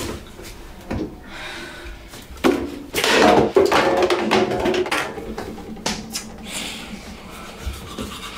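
Small clicks and knocks of things handled at a bathroom sink, a tap handle among them, with a louder rushing stretch lasting about a second a little before the middle.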